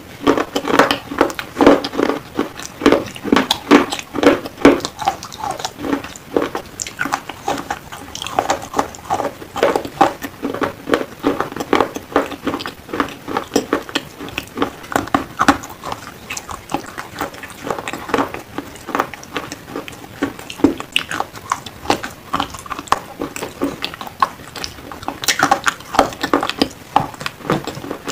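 A person biting and chewing black slate pencils: a fast, dense string of dry crunches and crackles without pause.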